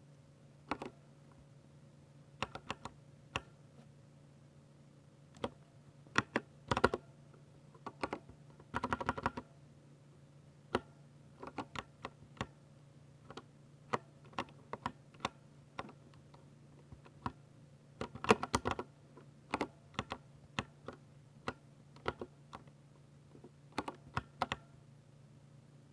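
Typing on a Ducky 60% mechanical keyboard with silver switches: irregular runs of key clicks and clacks, with short pauses between bursts and quick flurries about a third and two-thirds of the way through. A faint steady low hum lies underneath.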